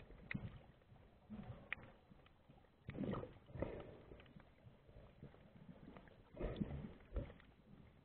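Muffled underwater sound picked up by a submerged camera: scattered clicks and knocks, with two longer rushes of water noise, about three seconds in and again about six and a half seconds in.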